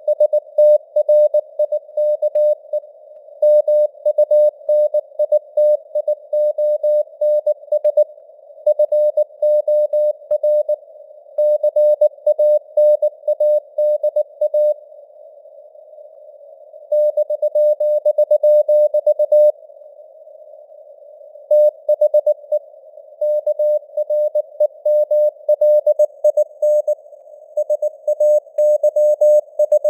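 Morse code sent at 19 words per minute as a mid-pitched beep keyed rapidly on and off, over a steady band of hiss simulating radio noise, with the signal strength fading up and down (simulated QSB). Twice the keying stops for about two seconds, leaving only the hiss.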